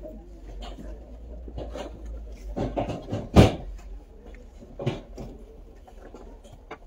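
A few knocks, then a heavier thump about three and a half seconds in and another knock near five seconds, from work down in the open brick burial vault, over a steady low rumble.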